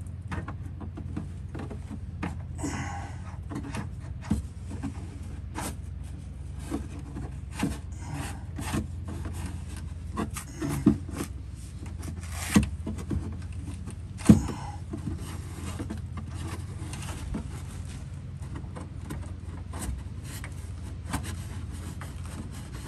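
Wrench work on a rear shock absorber's mounting bolts: scattered clicks, scrapes and rubbing of metal tools and hardware, with three sharper knocks a second or two apart about halfway through, over a steady low hum.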